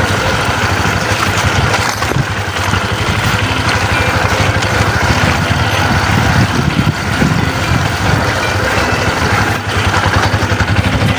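Motorcycle engine running steadily at low speed while riding down a rough dirt path.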